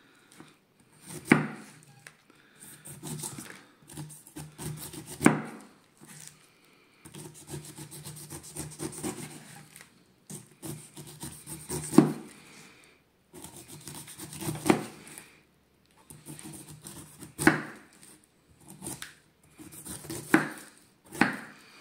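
Large chef's knife sawing down through a whole pineapple's tough rind, strip after strip: a rasping, scraping cut on each stroke, several of them ending in a sharp knock, about seven in all.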